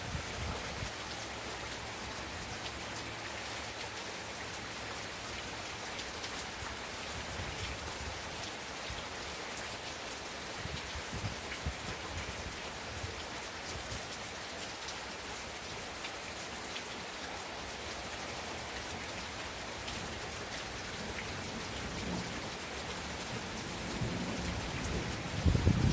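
Steady rain pattering, with scattered sharp crackles from a wood fire. A low rumble swells near the end.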